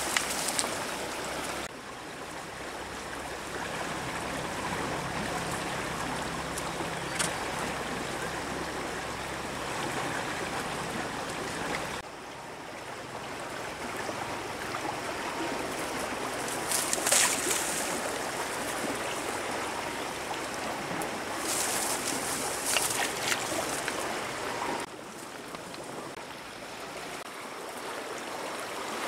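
Steady rushing of a flowing stream or river, dropping abruptly in level a few times. A few short, sharp crackly noises sound over it about halfway through and again a little later.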